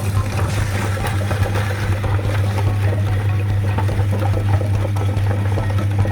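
Electric meat grinder running with a steady motor hum, with irregular crackling as candy is ground through it.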